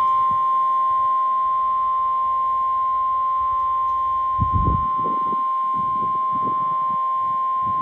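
NOAA Weather Radio warning alarm tone: a single steady 1050 Hz tone held unbroken over a weather radio broadcast, signalling a warning alert, here a severe thunderstorm warning.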